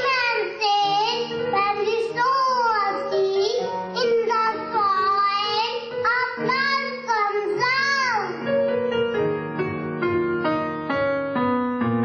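A child singing over backing music of steady sustained instrument notes. The voice stops about eight and a half seconds in, and the music carries on alone.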